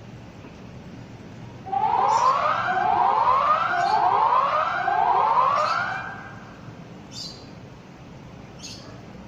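Electronic warning siren sounding four loud rising whoops of about a second each, then cutting off after about four seconds. Short high chirps come every second or two, on through the siren and after it.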